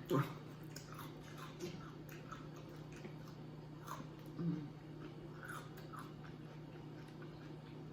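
A person chewing food close to the microphone: scattered soft smacks and clicks of the mouth at an irregular pace. A steady low hum runs underneath.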